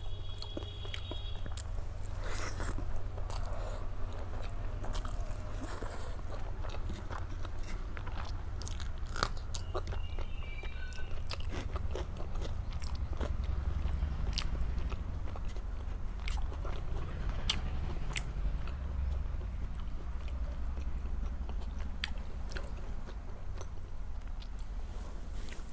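Close-miked chewing and biting of a meal of rice and curry: wet mouth clicks and smacks with occasional crunches, over a steady low hum.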